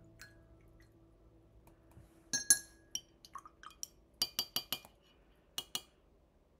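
Paintbrush clinking against a glass water jar while being rinsed and tapped off: one loud ringing clink a couple of seconds in, then lighter ticks, a quick run of four taps, and two more near the end.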